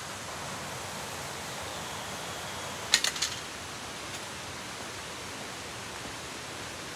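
Steady, even outdoor hiss of forest background, with a quick run of sharp knocks about three seconds in and one faint knock a second later.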